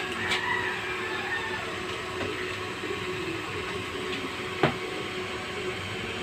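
Steady background rumble while ceramic and plastic plant pots are handled, with one sharp knock of a pot being set down about two-thirds of the way through.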